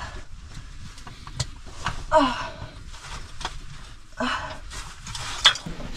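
A caver breathing hard and groaning with effort while squeezing through a tight rock passage, with a short falling groan about two seconds in and a few sharp knocks of gear and body against rock.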